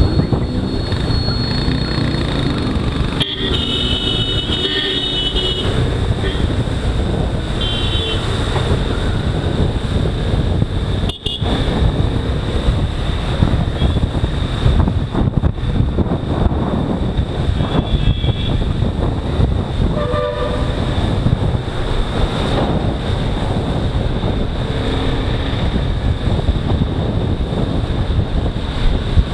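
Motorcycle riding in city traffic: steady wind rush and engine noise on the moving bike. Vehicle horns give several short honks, the first a few seconds in and others around the middle and later on.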